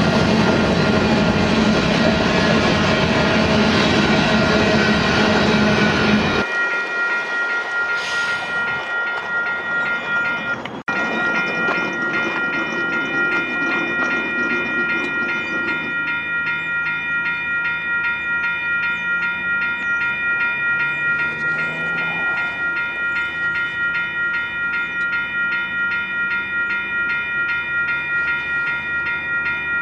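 Freight cars rolling past with a loud clatter of wheels on rail, cutting off sharply about six seconds in. After that a railroad grade-crossing bell goes on ringing in a steady, rapid, high-pitched ding. A faint low hum from a distant approaching train sits underneath in the second half.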